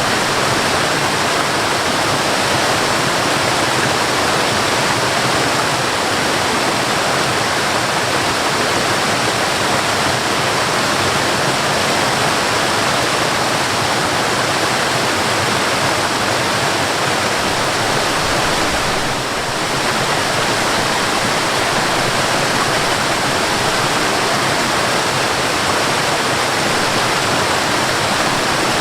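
Waterfall: a steady, dense rush of falling water, dipping slightly for a moment about two-thirds of the way through.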